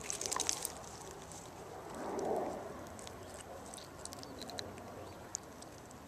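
Dry fallen leaves crackling and rustling underfoot, with a cluster of crisp crackles in the first half second and then only sparse faint crackles. A soft muffled swish swells briefly about two seconds in.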